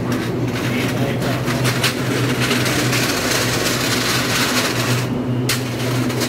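Steady hum of a stationary electric commuter train's onboard equipment at an underground platform, with two constant low tones. A broad hiss swells through the middle, and a few faint clicks are heard.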